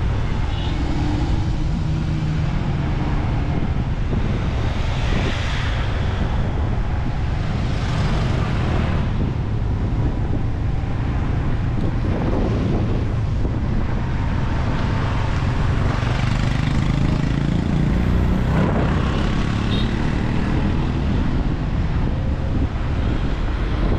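Wind rushing over the microphone of a moving motorbike, with engine and tyre noise on the road underneath, swelling briefly a few times.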